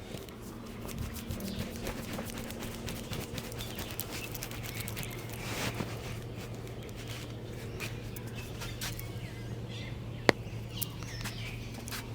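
Hands slapping and tapping during a head and neck massage, a run of irregular light pats, over a steady low hum, with one sharp, much louder click about ten seconds in.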